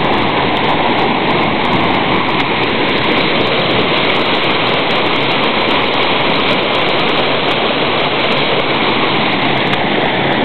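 Waterfall cascading over rock ledges: a loud, steady rush of whitewater.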